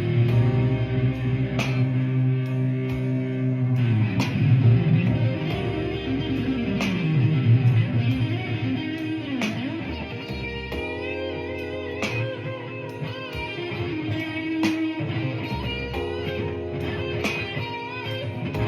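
Blues played on guitar: held notes and bent notes sliding up and down in pitch, over sharp beat hits at regular intervals.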